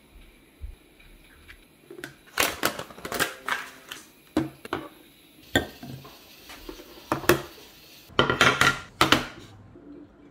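Plastic tableware being handled: a lunchbox and a spoon with a snap-on cover clicking and knocking against each other and the table. The clicks come irregularly, about a dozen, with a denser run near the end.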